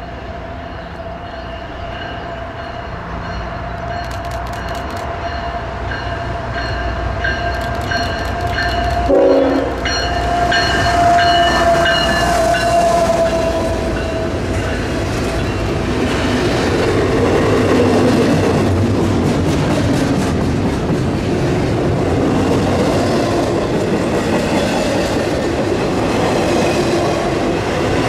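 Approaching CSX freight train sounding its GE diesel locomotive's Nathan five-chime horn in a long chord for about the first 14 s, the pitch bending down briefly about 9 s in. After that the train rumbles past, wheels clattering over the rail joints, and grows louder.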